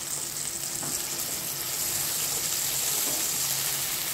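Jaggery melting in water in a hot pan, the syrup bubbling and sizzling with a steady hiss that grows slightly louder.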